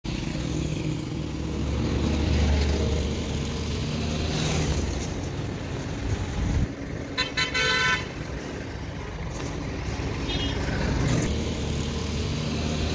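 Street traffic: engines of passing vehicles running, with a vehicle horn tooting in a few short blasts about seven seconds in.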